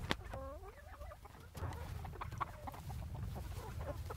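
Chickens clucking around a mobile coop, short irregular calls through the whole stretch, one bending call about half a second in. A sharp knock right at the start, from plastic mineral feeders being handled in the coop, and a steady low wind rumble underneath.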